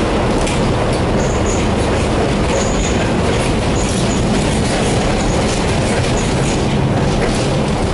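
Tatra tram running along the track: a steady rumble and rattle of wheels on rails, with several short, high wheel squeals scattered through it.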